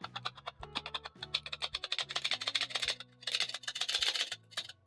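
Metal cup flour sifter clicking rapidly as its handle is worked to sift cocoa powder, over background music with steady low notes.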